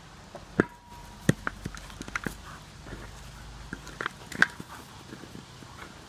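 Dog playing with a big ball: a run of sharp, irregular knocks and thumps as the ball is bitten, shoved and bounced against the ground, with the loudest pair about four seconds in.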